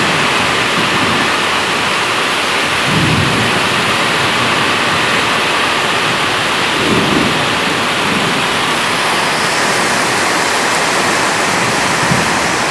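Steady rain falling on foliage and roofs, a continuous even hiss, with a few low rumbles about 3 and 7 seconds in.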